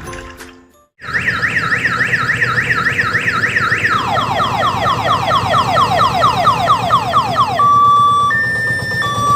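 Electronic multi-tone siren on a diesel odong-odong mini tourist train sounding shrill. A fast rising sweep repeats about three times a second, drops lower in pitch about four seconds in, then switches to an alternating two-tone hi-lo call near the end. A low engine rumble runs underneath.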